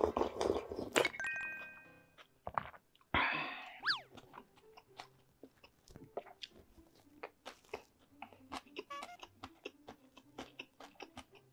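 Loud slurping of ramen broth drunk straight from a small dish for the first couple of seconds. A short whistle-like sound effect follows about three seconds in, then soft, close chewing of a bite of Spam gimbap (seaweed rice roll) with many small crunches.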